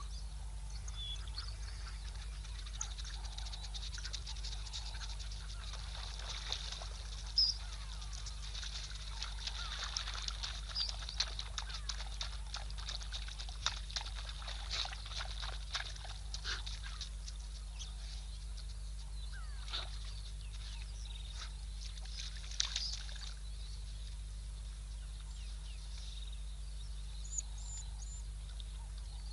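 African wild dogs' high-pitched twittering calls: many short chirps and clicks, thickest through the middle stretch, over a steady low hum.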